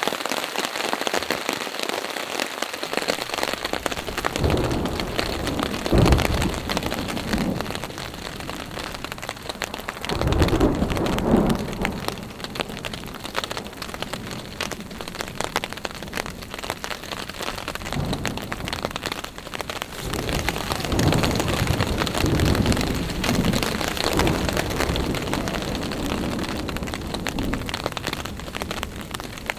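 Steady rain falling on a tarp and the surrounding forest, with several low rumbles of thunder, the loudest about six and eleven seconds in.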